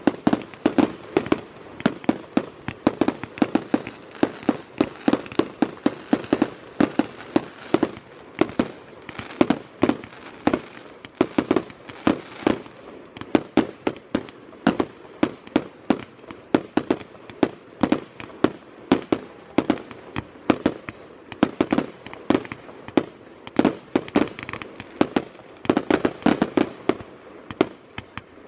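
Fireworks display: aerial shells bursting in a steady, rapid barrage of sharp bangs, several a second.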